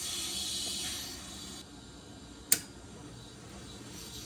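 Water hissing out through an opened brass drain valve on the well tank, easing off after about a second and a half. About two and a half seconds in comes a single sharp click as the pressure switch snaps closed and the submersible well pump kicks on, leaving a faint low hum.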